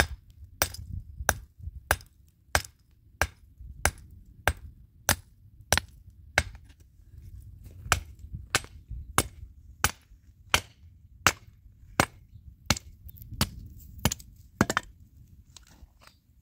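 Small hand hammer striking a white rock again and again, chipping pieces off it, with sharp cracks about one and a half times a second. The blows stop about a second and a half before the end.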